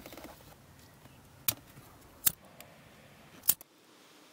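Three sharp clicks about a second apart, made while wiring a connector. The last and strongest is a pocket lighter being struck to shrink heat-shrink tubing over a wire splice.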